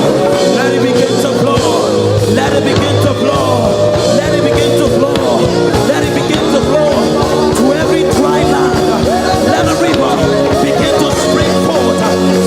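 Live worship band music: held keyboard chords over a drum beat, with a voice singing a wavering melody over it.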